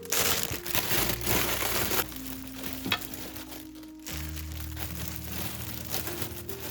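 Soft background music with crinkling and rustling handling noise over it, heaviest in the first two seconds.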